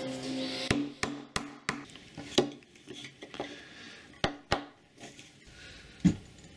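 Hammer tapping a wooden block to drive a bearing into a 3D-printed PLA steering part: about five sharp knocks in the first two and a half seconds. A few more separate knocks follow, two a little past four seconds and a loud one just after six.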